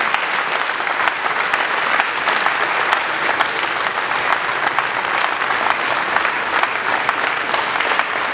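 Steady applause, a dense, even patter of hand claps.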